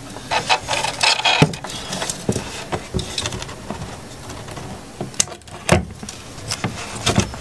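Hands handling a COB LED strip and its adhesive backing against a 3D-printed plastic frame: papery rustling, then a few sharp clicks in the second half.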